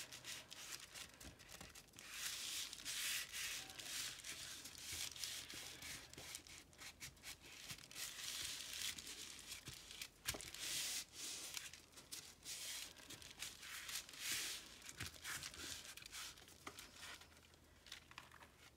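Palms rubbing over a sheet of damp paper laid on a cardboard collagraph plate, an irregular run of rustling, swishing strokes: hand-burnishing the paper down onto the plate to pull a print.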